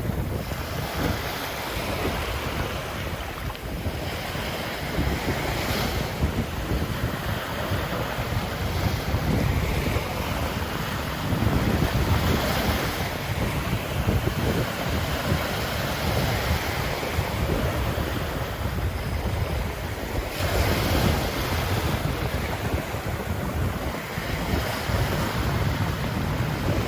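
Ocean surf breaking and washing up a sandy beach in continuous swells, with wind buffeting the microphone in a low rumble.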